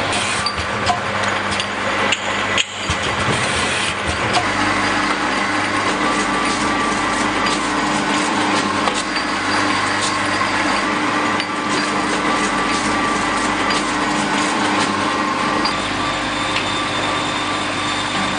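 Small bottle filling machine running: a steady motor hum under even mechanical noise, with frequent light clicks and knocks. The sound dips briefly about two and a half seconds in.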